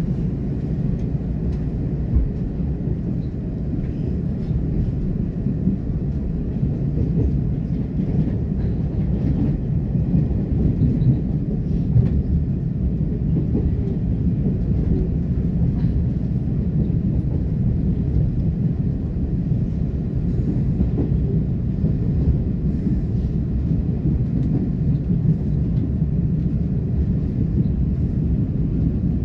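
Steady low rumble of a moving passenger train heard from inside the carriage, its wheels running on the rails, with a few faint clicks.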